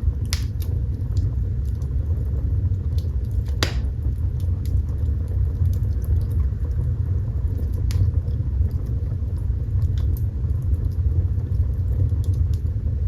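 Fire burning in a fireplace: a steady low rumble of flames with small crackles throughout and a few sharper pops, the loudest about three and a half seconds in.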